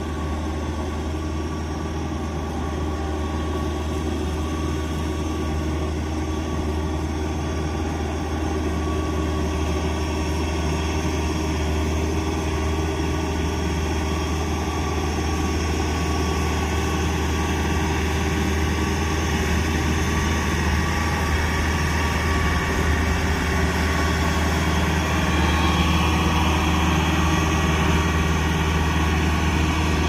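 Kubota DC105X combine harvester's diesel engine and threshing machinery running steadily, a constant low hum that grows slightly louder toward the end.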